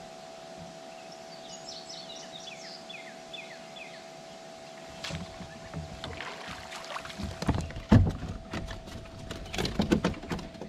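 A bird sings a quick run of descending whistled notes over a steady hum; from about halfway through come knocks, thumps and clatter of handling on a kayak, loudest near the end, as a fish is brought in.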